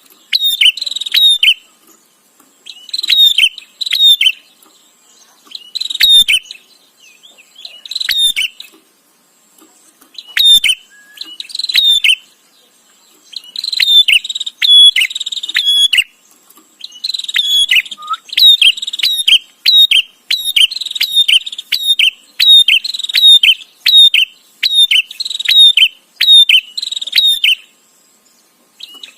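Prenjak (bar-winged prinia) singing its loud, chattering song: quick runs of sharp, repeated chirps in phrases about a second long, separated by short pauses at first and then running almost continuously through the second half.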